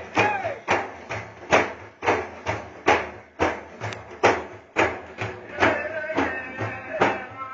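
A drum beaten in a steady rhythm of about two strokes a second, with a voice singing again near the end.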